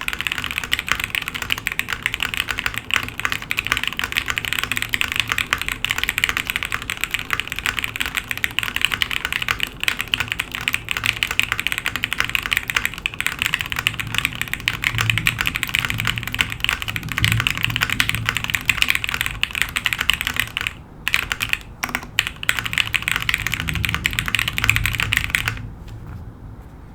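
Fast, continuous typing on a Noxary 378 gasket-mount mechanical keyboard with lubed Gateron Oil King linear switches on a 5mm polycarbonate plate, no foam. The keystrokes pause briefly twice a little past two-thirds through and stop near the end.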